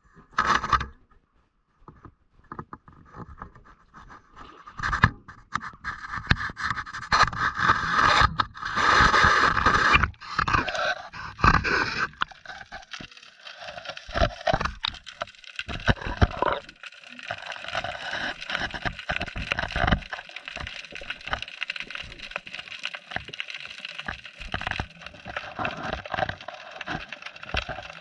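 A GoPro in its waterproof housing is lowered from a bridge into the water. It knocks and scrapes in handling and against the wood. From about twelve seconds in it is underwater: a muffled steady hiss with small clicks and knocks on the housing.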